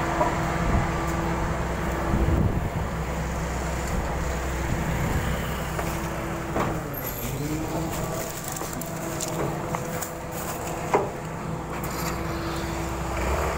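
Garbage truck's diesel engine running with a steady whine over it. The whine breaks off about two seconds in and returns with a dip in pitch around seven seconds, amid street traffic. A single sharp knock comes about eleven seconds in.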